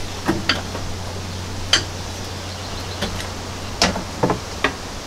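Scattered light metal clicks and clinks as the air-injection tubing is worked loose by hand in the engine bay, over a low steady hum.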